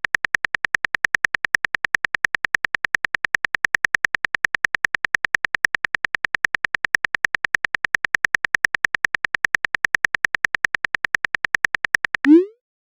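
Electronic alert tone of a simulated Emergency Alert System warning: a high beep pulsing rapidly and evenly, about seven or eight times a second. It breaks off near the end and gives way to a short rising tone.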